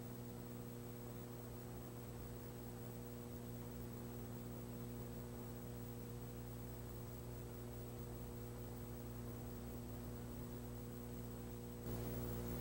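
Faint steady electrical mains hum with light tape hiss; no race sounds stand out. The background steps up slightly near the end.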